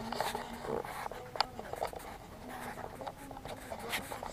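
Scratchy rustling and scattered clicks of close handling noise, with a sharp tick about a second and a half in and another near the end.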